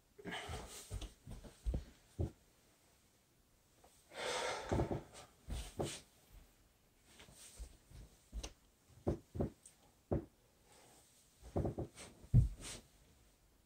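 A man's heavy breathing and hard exhales during floor exercise, mixed with many short dull thumps of bare feet and hands landing on a carpeted floor. The loudest thump comes near the end.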